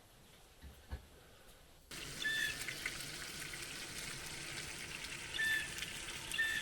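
Quiet for about two seconds, then thick-cut bacon sizzling steadily in a frying pan, with a few short high chirps over it.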